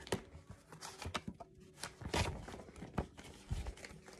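Papers and small belongings being handled and sorted in a small room: irregular rustling, with taps and knocks as things are picked up and put down.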